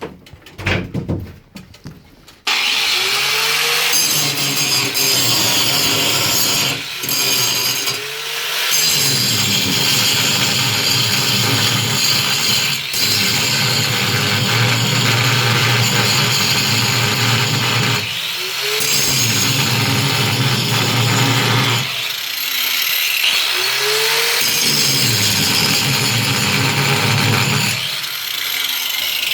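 Angle grinder cutting down a seat bolt and its plate in a school bus floor. It starts about two seconds in and runs loud and steady, with the motor's pitch dropping and recovering several times as the disc bites into the metal.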